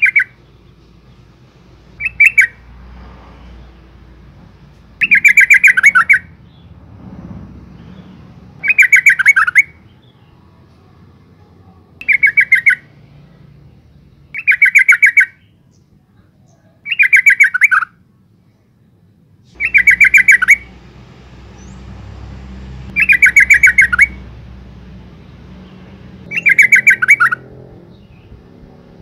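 Yellow-vented bulbul giving a female's call to a male: short, bubbly chattering phrases, each under a second, about ten of them repeated every two to three seconds at much the same pitch.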